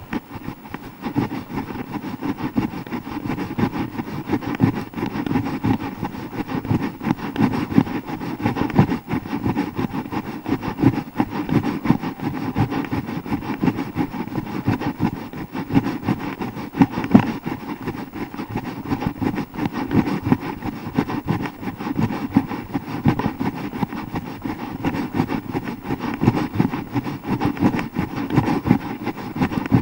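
Running footfalls and the jostling of a hand-held action camera on its own microphone, a steady rumble of rapid knocks.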